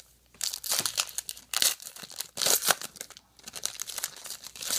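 Foil wrapper of a trading card pack being torn open and crinkled by hand, in a series of short, irregular crinkling rustles.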